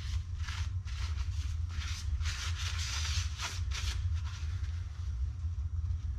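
Hand rubbing and wiping a clutch friction disc from a twin-disc clutch, a run of irregular scuffing strokes that is busiest about two to three and a half seconds in. A steady low hum runs underneath.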